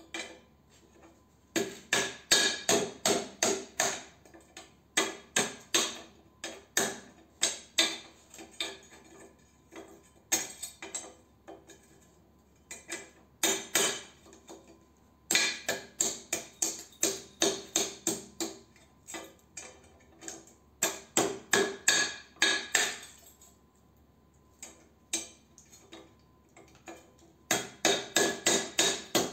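Hammer tapping a small metal piece held on a wooden block, in quick runs of sharp clinking strikes, about three or four a second, with short pauses between the runs.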